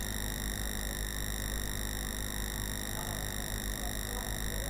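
Steady electrical hum and hiss picked up by a computer's microphone input: a low mains hum with several thin, steady high-pitched whines above it.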